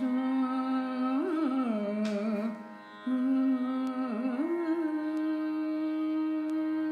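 A woman singing a slow Carnatic phrase of a Sanskrit shloka over a steady drone, the voice gliding and ornamenting between notes before settling on one long held note about two-thirds of the way in.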